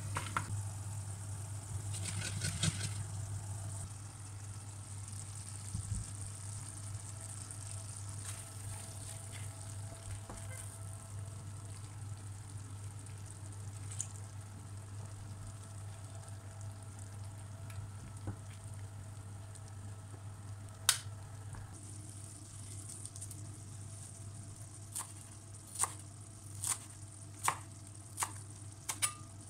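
Pumpkin seeds sizzling in oil in a frying pan over a steady low hum. Near the end, a chef's knife chops fresh coriander on a cutting board: a string of sharp chops, a little more than one a second.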